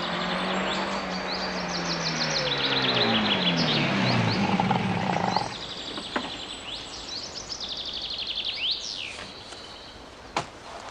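A car drives off, its engine note falling steadily in pitch over the first five seconds before it cuts off, while small birds sing repeated chirping trills; a faint click comes near the end.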